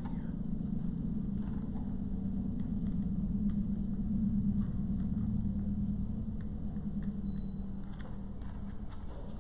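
Steady low hum and rumble of background noise, a little louder in the middle, with a few faint light clicks and taps of craft materials being handled.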